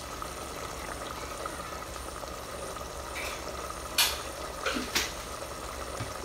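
Tomato and pepper sauce simmering in an aluminium pot, a steady bubbling hiss. A few sharp clicks come about two-thirds of the way in.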